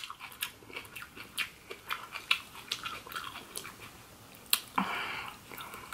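Close-miked mouth sounds of chewing raw vegetables: a scatter of small crisp clicks and crunches. About five seconds in there is a short, soft rush of noise.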